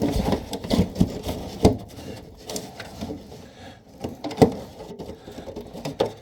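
Scattered knocks and clunks of handling, as of parts or tools bumped against wood, with the sharpest one about four seconds in.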